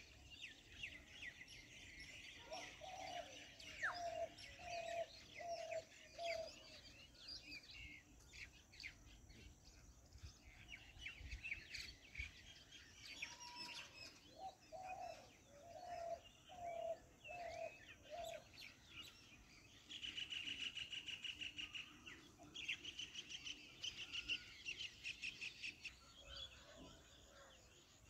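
Wild birds calling around a pond: high chirps and twitters throughout, twice a run of six or seven evenly spaced low notes, and a fast high trill in the last third.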